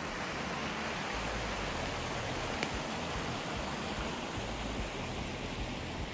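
Steady rushing of a swollen river running high and fast, with one faint click about two and a half seconds in.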